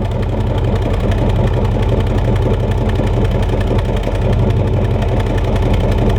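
1996 Chevy Tahoe's gasoline V8 idling warm, a loud, even, rapid pulsing. The engine has a rough-idle misfire that makes the truck shake at idle, which the owner traces to failed spark plug wires.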